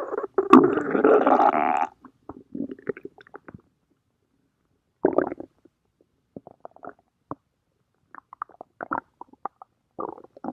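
Stomach growling: a loud, wavering gurgle that stops about two seconds in, then scattered short gurgles and pops with quiet gaps between them.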